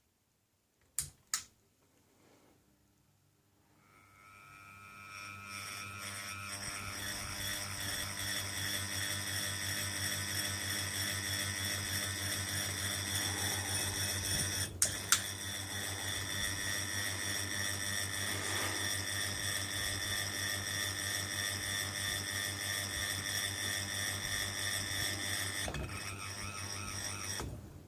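Ceiling fan coming up to speed after two clicks, then running with a steady low hum and an annoying high-pitched whine of several tones that pulses quickly. There is a single sharp click about halfway, and the noise cuts off near the end.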